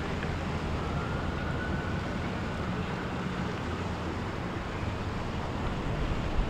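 Boat engines running with a steady low hum over wind and water noise. A faint thin whine rises slightly about a second in and fades out a few seconds later, and there is a brief thump just before the end.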